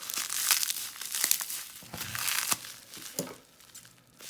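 Packing wrap crinkling and rustling as it is handled, with several sharp crackles, dying down in the last second.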